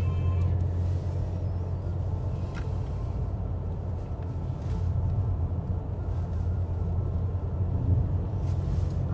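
Steady low rumble of a car driving, heard from inside the cabin: engine and road noise at an even cruising speed.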